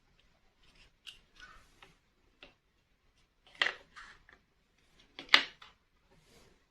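Plastic toy pieces being handled: scattered light clicks and rustles, with two louder clacks about three and a half and five and a half seconds in.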